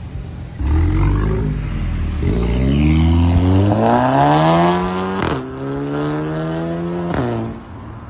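A car engine and exhaust revving up under acceleration. The pitch climbs steadily for about three seconds, then holds level. There is a sharp crack about five seconds in and another near the end.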